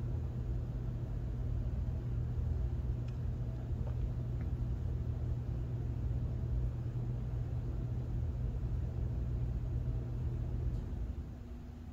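A steady low rumble with a hum underneath, which fades away about eleven seconds in.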